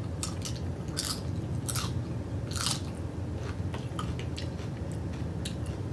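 Close-miked chewing of a mouthful of nachos, with crisp tortilla-chip crunches coming irregularly; the loudest crunches fall about a second and two and a half seconds in. A steady low hum runs underneath.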